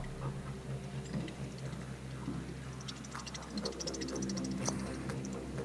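Fishing reel being wound in during a top-water retrieve, with a run of fast ticking about three seconds in.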